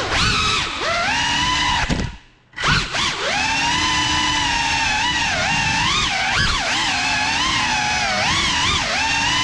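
Cinelog 35 FPV drone's brushless motors and propellers whining, recorded on board, the pitch rising and falling with the throttle. About two seconds in the motors cut out for a moment, then spool back up.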